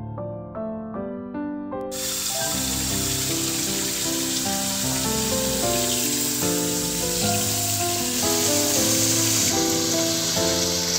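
Tap water running and splashing onto shepherd's purse greens being rinsed by hand in a kitchen sink, starting suddenly about two seconds in, with piano music.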